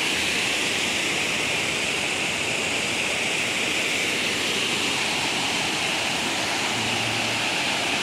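Steady rush of a waterfall, water cascading over rock ledges and splashing into the pool below.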